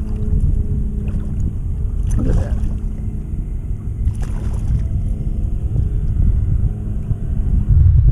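Strong wind buffeting the microphone, with two brief splashes about two and four seconds in from a big hooked black drum thrashing at the surface. The wind rumble gets louder near the end.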